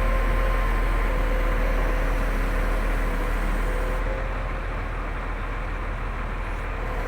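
Hitachi Zaxis 350 excavator's diesel engine running at low speed with a steady drone and whine, easing slightly about four seconds in. The engine speed will not hold up when throttled, which the mechanics put down to a faulty throttle motor.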